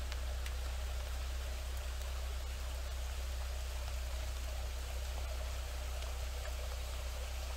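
Steady, even hiss of rain and water running over rocks, with a steady low rumble underneath.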